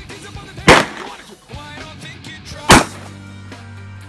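Two handgun shots about two seconds apart, each a sharp, loud crack, over background music.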